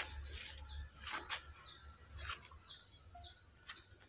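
A small bird chirping repeatedly: short, high, falling chirps about twice a second. Scattered sharp clicks and rustles are mixed in, and a low rumble fades out after about a second.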